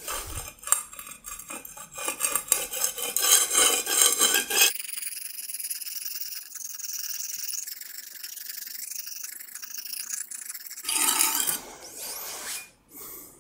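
Steel chef's knife blade rubbed back and forth on a fired-clay brick used as a sharpening stone, wetted with a little water: quick rasping strokes, loud for the first few seconds, then fainter and higher for several seconds, then a louder run of strokes near the end. The blunt edge is being ground back to sharpness one section at a time.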